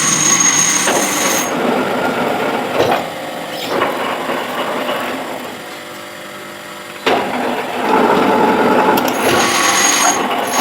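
Manual lathe cutting a thread, a steady machine grind with a thin high whine. About a second and a half in the cutting noise drops away and the lathe runs on more quietly. A sharp knock comes about seven seconds in, and the louder cutting noise picks up again a second later.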